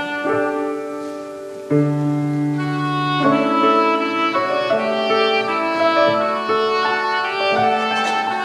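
Instrumental music of sustained, held chords that change every second or so, with a low bass note coming in and the music growing louder about two seconds in.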